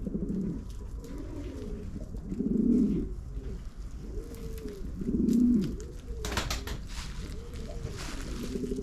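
Several domestic pigeons cooing, low overlapping coos that rise and fall in pitch, two of them louder, about a third and about two-thirds of the way in.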